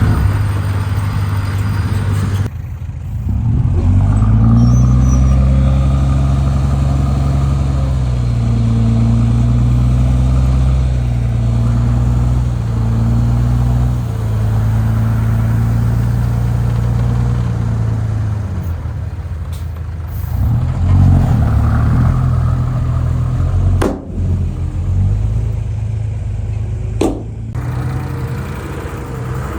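Heavy diesel engine of earthmoving machinery running and working, its pitch rising and falling with the load, with two sharp knocks about three seconds apart near the end.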